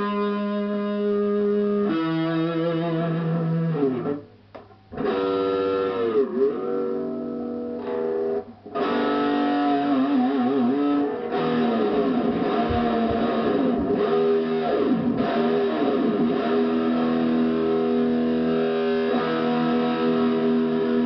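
HK Wolf superstrat electric guitar played solo: held notes and chords, several notes that dip in pitch and swing back up, and a wobbling vibrato note. There are two brief breaks in the playing, about four and eight seconds in.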